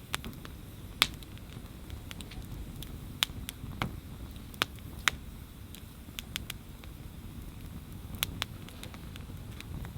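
Wood campfire crackling, with sharp irregular pops of burning wood, the loudest about a second in, over a low steady rumble.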